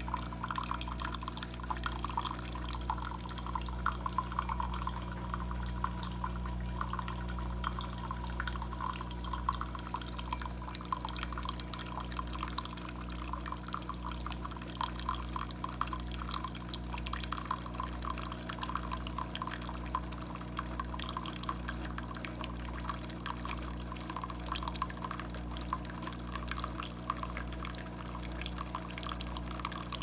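Coffee streaming from a Cuisinart single-serve brewer's spout into a partly filled paper cup, a continuous trickling splash, over a steady low hum from the machine.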